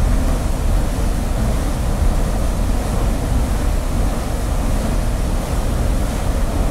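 Steady, loud rush of falling water, like a heavy downpour of spray, with a deep rumble underneath.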